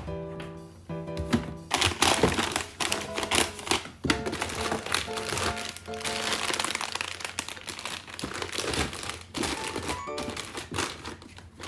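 Plastic food packaging and bags crinkling and rustling as groceries are handled, over light background music.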